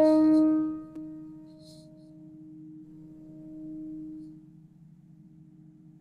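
The high E string of a factory Fender Squier Stratocaster electric guitar ringing out after a single pluck, left to sustain. The note is loud at first, drops sharply about a second in, then fades slowly over a faint steady hum.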